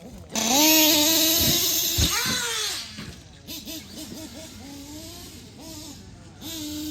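Traxxas X-Maxx RC monster truck's brushless electric motor whining under throttle with tyre noise, loudest in the first couple of seconds as the pitch holds and then swings up and down. After that it runs quieter, the whine wavering as the throttle changes.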